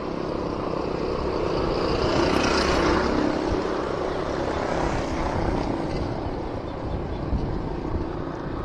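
Wind rumble on the microphone of a moving bicycle, with a motor vehicle passing on the road that swells to its loudest about two to three seconds in and then fades.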